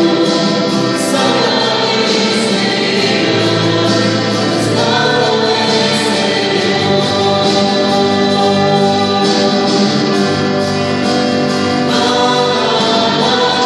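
Christian worship song sung by a choir, the voices holding long sustained notes over a steady loud backing.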